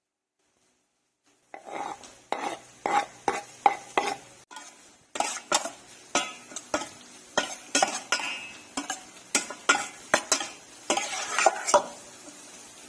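Spoon knocking and scraping against a bowl while mixing food, about two strikes a second, starting after a second and a half of silence and briefly breaking off about four and a half seconds in.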